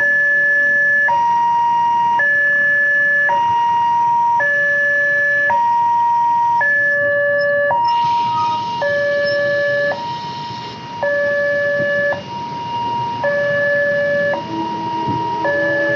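Railway level-crossing warning siren sounding an electronic two-tone alarm, switching between a high and a low tone about once a second. This is the warning that a train is approaching and the barriers are closing. Near the end a lower steady tone, like a horn, joins in.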